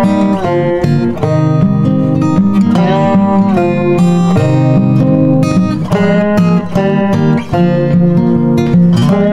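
Instrumental background music led by guitar, with some notes that bend in pitch.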